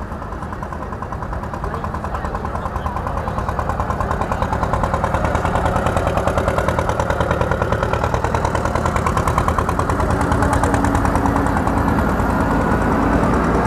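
Diesel engines of JCB backhoe loaders driving past close by, with a fast, even pulsing beat, growing louder over the first few seconds as they come near and then running steadily.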